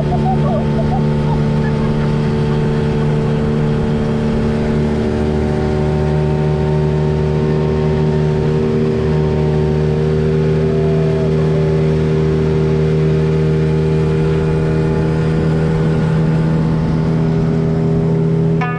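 An engine running at a steady speed: an even, low drone whose pitch barely changes.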